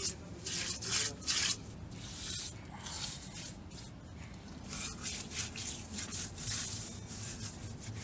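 A bare hand rubbing and smearing a black coating onto the firebrick lining of a metal-melting furnace: a series of short rubbing strokes, louder in the first second and a half and fainter after.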